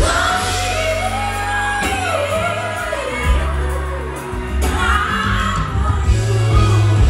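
Female R&B singer singing live into a microphone over a band, with a heavy bass line and electric guitar and keyboards under her voice. The melody slides and bends through long held notes.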